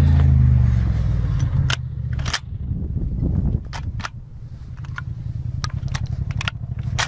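Shotgun being handled and reloaded: a series of sharp metallic clicks and knocks from the action and shells, about ten in all, over a low steady hum.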